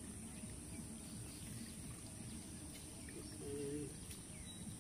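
Quiet outdoor ambience: insects such as crickets giving a steady high-pitched buzz over a low rumble, with a short faint hum about three and a half seconds in.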